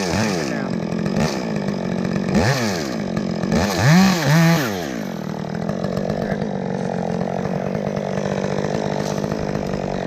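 Chainsaw running during tree removal, revved up and down several times in the first half, loudest at about four seconds, then holding a steady speed.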